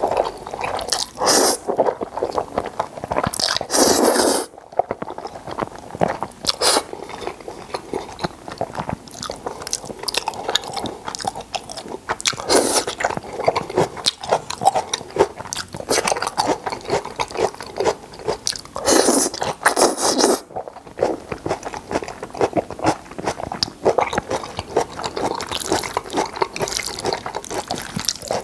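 Close-miked eating of thick jjajang noodles in black bean sauce. Several long slurps are the loudest sounds, near the start, around four seconds in, and around twenty seconds in, with wet chewing and squishing between them.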